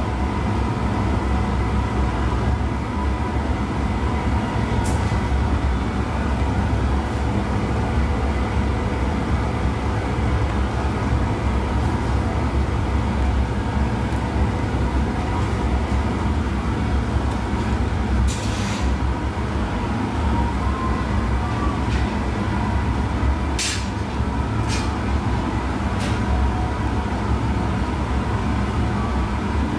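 Steady roar of a glassworks' gas-fired furnace and glory hole burner, with a few light clicks and taps.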